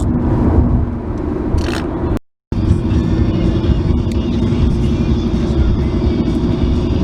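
Car cabin road noise with music playing, cut by a brief dropout to silence about two seconds in.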